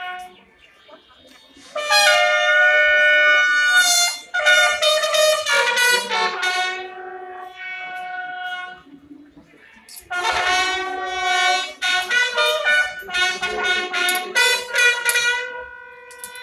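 Military marching band's brass playing a march tune in phrases of held and short notes, with brief pauses between phrases.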